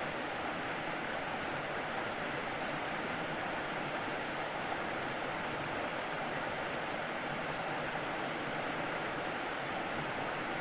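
Fast-flowing river water rushing steadily, an even hiss with no breaks.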